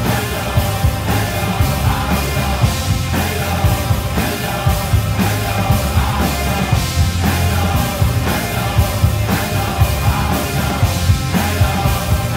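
Rock music with a steady drum beat and heavy bass.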